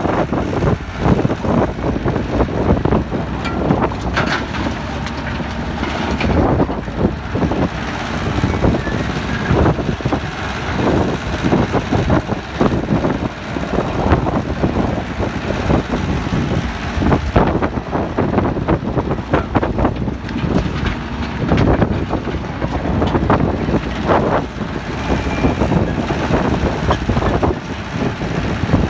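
Excavator at work: its diesel engine running under load, with frequent clanks and knocks throughout.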